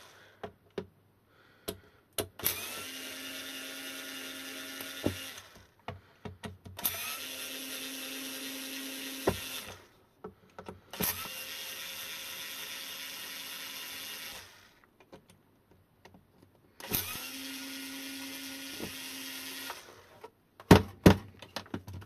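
Bosch IXO cordless screwdriver backing screws out of a plastic e-bike battery case. It runs in four steady bursts of about three seconds each, with small clicks between them. A few sharp knocks come near the end.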